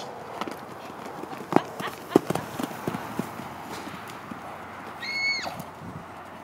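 Hoofbeats of a young feathered draft horse moving loose on a dirt arena: irregular soft thuds and a few sharp strikes, loudest in the first half. About five seconds in there is one short, high-pitched call that holds and then drops.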